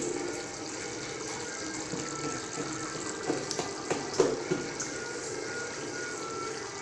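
Chicken gravy bubbling at a rolling boil in a pan: a steady hiss, with bubbles popping several times between about three and five seconds in.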